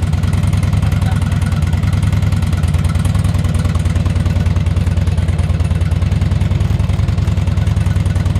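Harley-Davidson Electra Glide's air-cooled V-twin engine running steadily at idle, a loud, fast, even pulsing. The fire-damaged bike is running.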